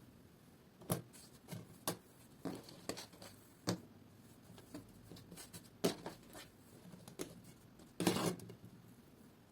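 Irregular light knocks, taps and scrapes of hands and utensils working on a kitchen counter, with a louder scraping rustle about eight seconds in.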